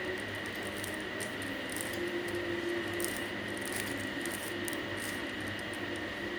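A 3x3 Rubik's Cube being twisted by hand: a run of quick, irregular plastic clicks and scrapes as the layers are turned.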